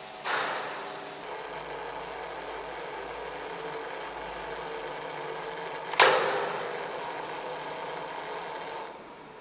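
A motor-driven LEGO striker knocking a large radiator twice, about six seconds apart, the second knock louder. Each knock leaves the radiator ringing with several steady tones that fade slowly. The ringing drops off suddenly near the end.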